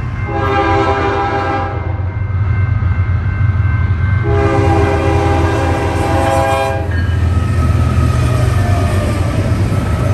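BNSF diesel freight locomotive blowing its air horn for a grade crossing: two long blasts, each a chord of several tones, the second longer. Between and after them the locomotive's diesel engine rumbles and the train rolls past.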